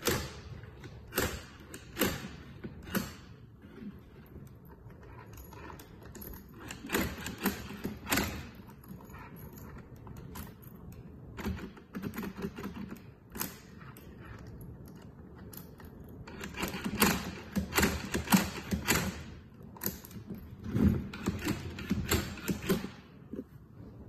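Commercial lever lockset worked by hand: the levers turned and the spring latchbolt snapping in and out, in irregular clusters of sharp metallic clicks and clacks.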